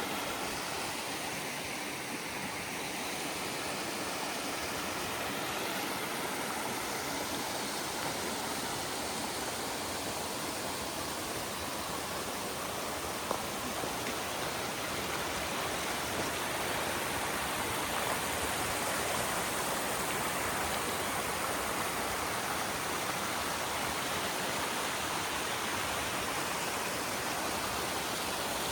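Mountain creek water rushing and splashing over rocks, a steady full hiss with no let-up.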